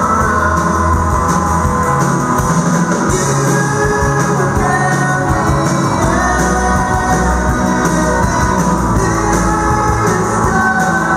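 Rock band playing live: electric guitars, bass guitar and drums with congas, and a man singing lead into the microphone, heard from the audience in a large hall.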